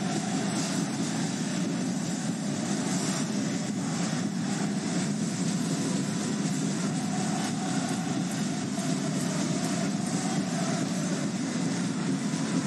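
Steady din of a large football stadium crowd.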